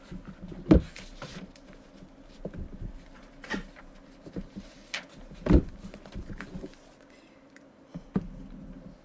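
A few separate sharp knocks and clicks at irregular intervals over a faint steady hum. The loudest come about a second in and a little past halfway.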